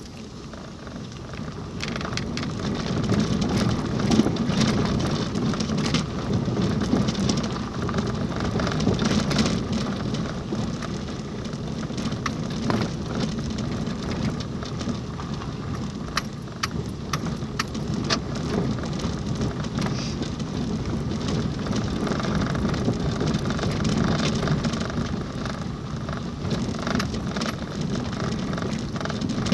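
Car driving on a rough, potholed dirt road, heard from inside the cabin: steady tyre and road rumble with many sharp ticks and rattles, growing louder about two seconds in.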